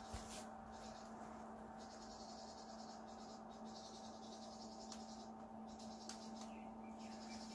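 Steady low electric hum from a 120 W submersible pump running to move sugar syrup through the feeding lines, with a faint hiss that comes and goes.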